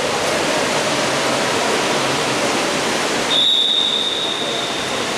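Steady wash of splashing water and crowd noise during a water polo match, with one long, steady, high whistle blast starting about three seconds in.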